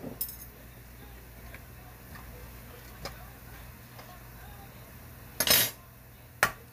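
A cooking utensil stirring and tapping against a frying pan of ramyeon noodles, with a few light clicks, a short clatter about five and a half seconds in and a sharp knock a second later.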